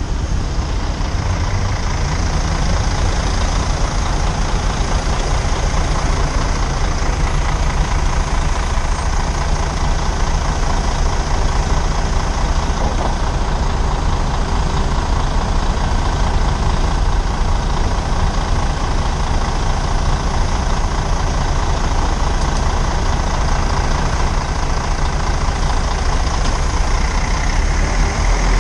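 Slow-moving city traffic around a motorcycle: the engines of buses, a coach and a taxi idling and crawling alongside the motorcycle's own engine, a steady low rumble.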